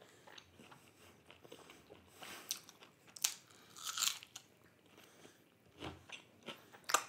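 A person chewing and biting food close to the microphone: soft, irregular mouth sounds, with a few louder ones in the middle and the loudest just before the end.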